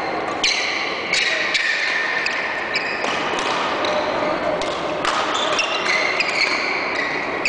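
Badminton rackets striking a shuttlecock during a doubles rally: a series of sharp hits with short high ringing tones after some of them, echoing in a large sports hall.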